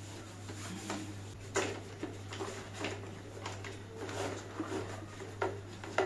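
Scattered light clicks and knocks of plastic parts being handled and fitted on an upturned robot vacuum, about five in all, over a steady low hum.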